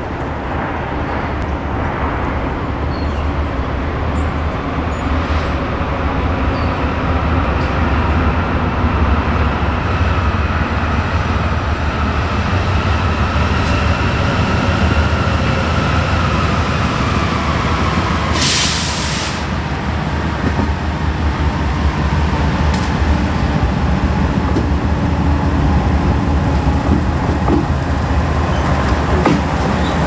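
Two BNSF diesel locomotives, a GE Dash 9-44CW leading, approach and pull past hauling a double-stack intermodal train: a steady low engine rumble that grows louder as they near. A short hiss comes a little past the middle.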